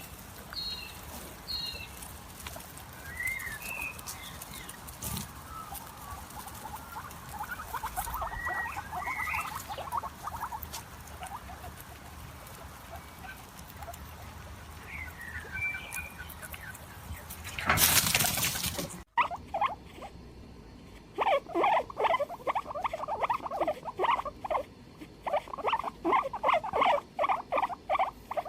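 Guinea pigs calling: scattered short squeaks over a light patter, a brief loud noisy burst about two-thirds in, then after a sudden cut a fast run of repeated short squeaks, several a second.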